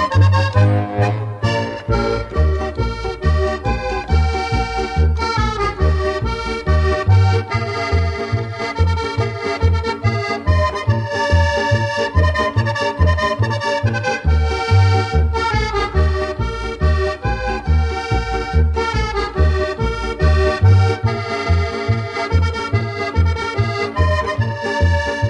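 Instrumental interlude of an Alpine folk drinking song: an accordion plays the melody over a steady bass beat.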